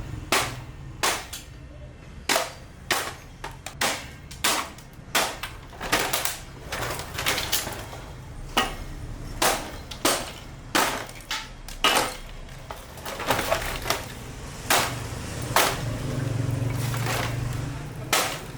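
Repeated sharp knocks of hand tools striking a scrap television's casing and parts as it is broken apart, one to two blows a second at an uneven pace, over a low hum that swells near the end.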